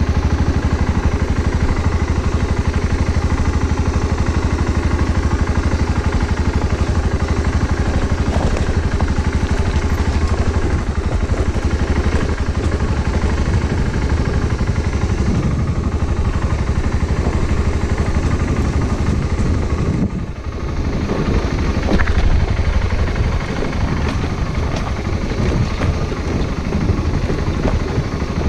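Steady low wind rumble and road noise on the microphone of a camera riding along on a bike, dipping briefly about twenty seconds in.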